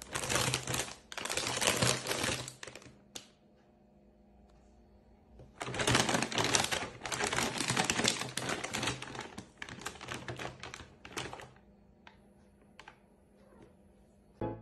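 A crinkly plastic bag being shaken and rustled in two bouts: about three seconds of crackling, a short pause, then about six seconds more.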